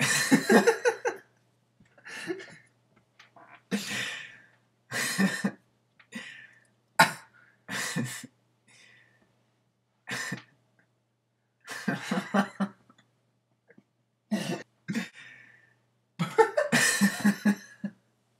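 Repeated coughing in about a dozen short bursts with pauses between them. The longest and loudest fits come at the start and near the end.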